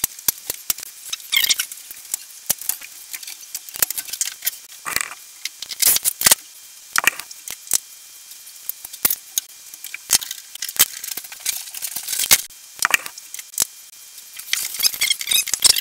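Electrical cables and their clips being pulled off an engine-bay timber frame by gloved hands: irregular clicks, snaps and scrapes, with a denser run of crackling near the end.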